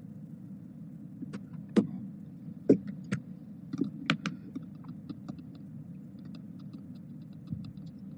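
Several sharp clicks and knocks in the first half, then a run of faint light ticks at about three a second, over a steady low hum.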